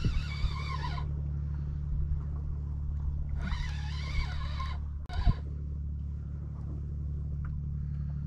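Small boat's outboard motor idling with a steady low hum. Over it come two high wavering sounds of about a second each, one at the start and one around four seconds in, and a short knock just after five seconds.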